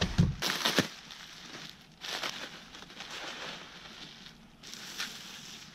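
Plastic bubble wrap crinkling and rustling as it is pulled out of a cardboard box and off a wrapped item, with a few sharp crackles in the first second.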